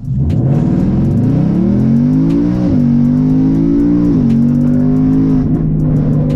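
Ford Mustang GT's 5.0 L Coyote V8 accelerating hard from a standstill in a 0-60 run. Its pitch climbs, then drops with a quick upshift of the ten-speed automatic about two and a half seconds in, again about four seconds in, and once more near the end.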